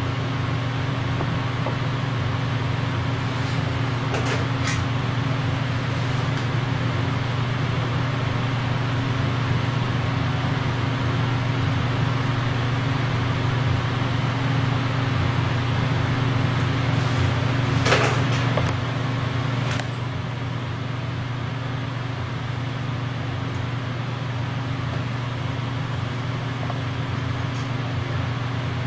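Steady mechanical hum with a constant hiss, with a few faint clicks about four seconds in and again near eighteen and twenty seconds in.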